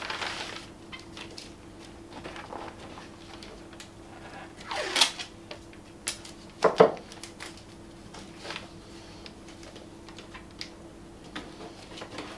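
Paper template rustling against a car's front guard while masking tape is pulled off its roll with a rasping rip near the middle and torn off with a sharp snap soon after, amid small taps and a faint steady hum.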